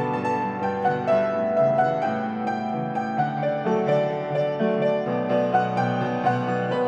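Upright piano played solo: a melody in the upper notes over sustained chords in the bass, with notes struck one after another at a steady pace.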